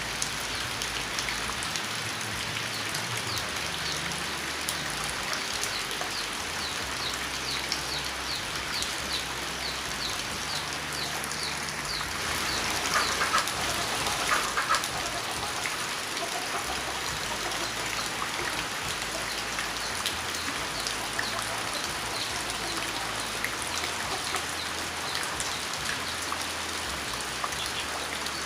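Steady rain falling and pattering on surfaces. A faint high chirp repeats about twice a second through the first half, and a few louder bird calls stand out near the middle.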